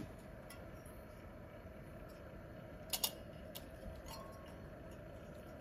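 Stainless-steel wire egg slicer clicking and clinking as it is handled and pressed down through a boiled egg: a few sparse metallic clicks, the loudest a quick double click about three seconds in.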